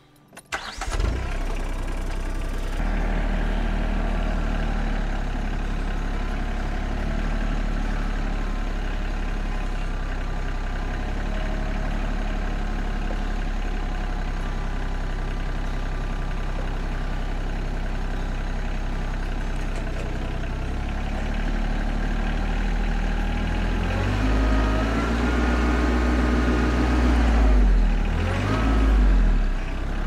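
Diesel engine of a TYM compact tractor running steadily under loader work as it carries and sets a log with its grapple. Near the end the engine revs rise and fall several times.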